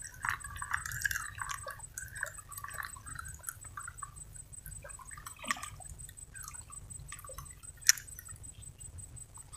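Faint small drips, clicks and lapping of river water at the bank, over a low steady rumble. A faint pulsing high-pitched tone sits underneath.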